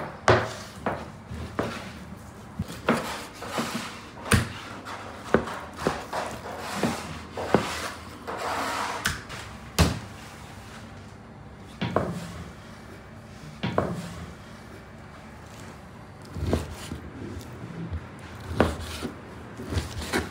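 Large kitchen knife cutting beef on a wooden table: irregular sharp knocks of the blade on the board, with a few longer scrapes as it slices through the meat.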